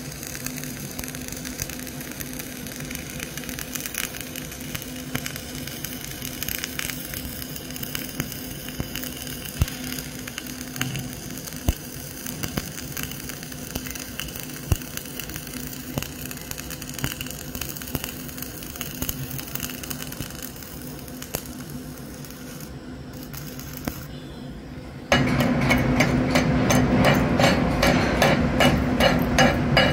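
Flux-cored arc welding: the arc crackles and hums steadily while a vertical fillet weld is run. About 25 seconds in it gives way to louder rapid strikes of a chipping hammer, several a second, knocking slag off the fresh weld bead.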